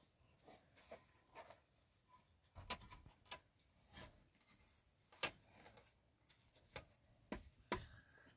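Faint, irregular clicks and knocks of small objects being handled, about seven in all, the sharpest about two-thirds of the way through.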